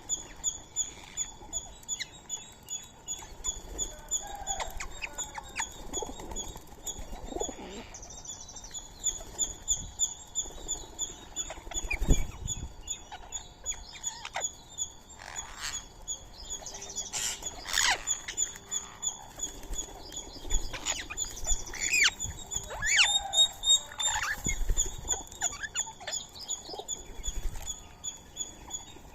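Birds chirping and calling: a steady, fast run of high repeated chirps with assorted bird calls over it, and a single thump about twelve seconds in.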